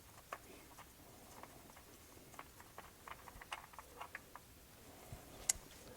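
Faint, irregular light clicks and taps of a fuel pressure regulator being spun off the end of the fuel rail by hand, with one sharper click near the end.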